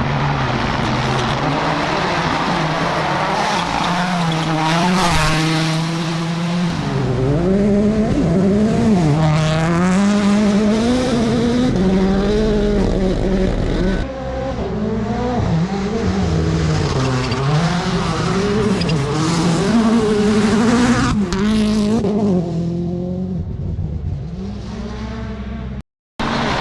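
Rally car engines revving hard, the pitch climbing and dropping again and again with gear changes and lifts, as the cars drive through the stage. The sound changes abruptly twice, about halfway through and near the end, where one car's run cuts to another's, with a brief break just before the end.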